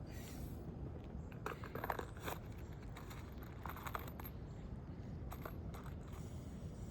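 Scattered crunches, scrapes and clicks of brittle asphalt roof shingles and hand tools being worked by hand during a shingle repair, in irregular bunches over a steady low background rumble.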